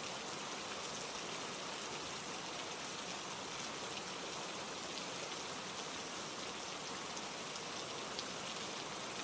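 Steady rainfall, an even hiss of rain with scattered drops ticking.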